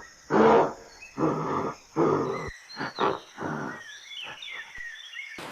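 An animal calling repeatedly: about six pitched calls of roughly half a second each, the first being the loudest, fading out about four seconds in.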